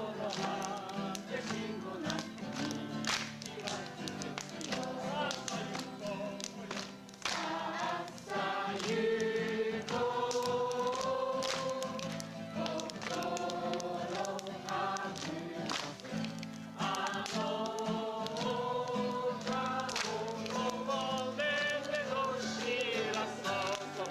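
A group of people singing a campfire action song together, with hand claps and slaps keeping the beat.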